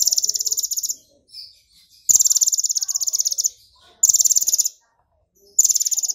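Purple-throated sunbird singing four bursts of fast, buzzing, insect-like trills, each half a second to a second and a half long with short gaps between. The trill is its imitation of the belalang emas (golden grasshopper) call.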